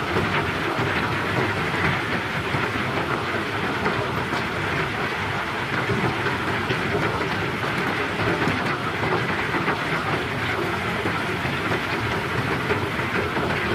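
Pebbles being unloaded from a sand barge: a steady, dense clatter of many stones rattling against each other.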